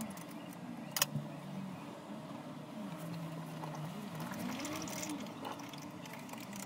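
Steel step clamps and a workpiece handled on a steel T-slot milling table, with one sharp metallic click about a second in. Behind it a faint background sound rises and falls slowly in pitch.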